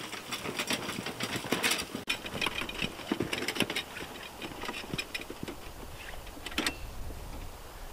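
Small two-wheeled metal hand cart rattling and clattering as it is pushed over bumpy ground, a rapid irregular run of clicks and knocks that is busiest in the first few seconds and thins out later.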